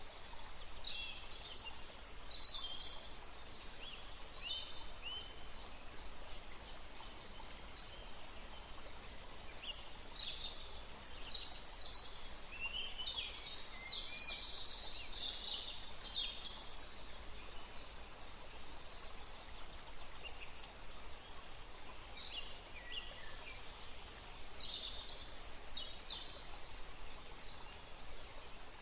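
Birds chirping: clusters of short, high calls and trills, busiest about halfway through and again near the end, with a lull between. Underneath runs a low, steady hiss.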